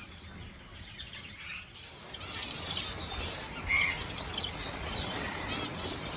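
Weaver birds chattering, a busy mix of short chirps and calls that picks up about two seconds in.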